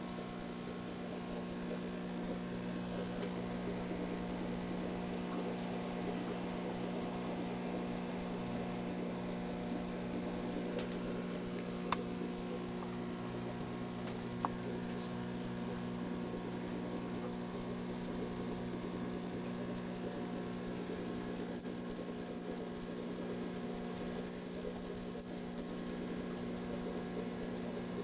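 Steady hum of an aquarium air pump with the soft bubbling of the box filter it drives. About halfway through there are two brief clicks a couple of seconds apart.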